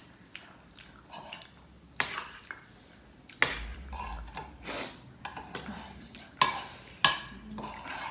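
Dishes and utensils clinking and clattering while eating, with about half a dozen sharp clicks spaced irregularly.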